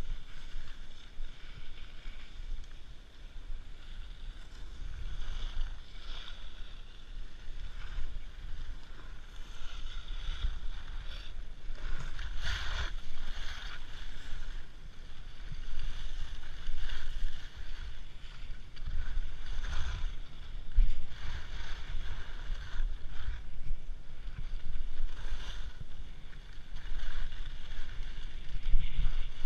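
Skis sliding and carving on packed snow: a scraping hiss that swells and fades every few seconds. Wind rumbles on the camera's microphone underneath.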